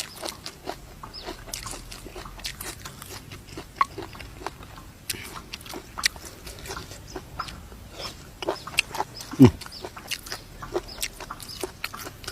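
Chickens clucking, a scatter of short, sharp calls with one louder, lower call about nine and a half seconds in.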